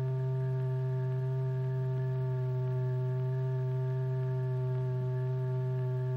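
A steady low electronic tone holding one pitch without a break, with a row of fainter overtones above it. It is the note driving the vibrating membrane that sets the lycopodium powder moving.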